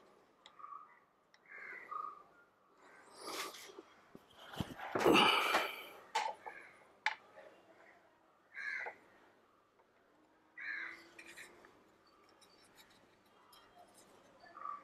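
Scattered handling noises, short rustles, clicks and scrapes, of hands working a brake-bleeding syringe and spanner at a motorcycle's front brake caliper bleed nipple; the loudest is a rustle about five seconds in.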